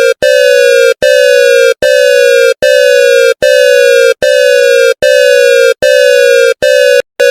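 Electronic emergency alert tone: a loud, buzzy beep repeating a little more than once a second, each beep sliding slightly down in pitch. It is the attention signal that introduces a Danish emergency warning ('Nødadvarsel').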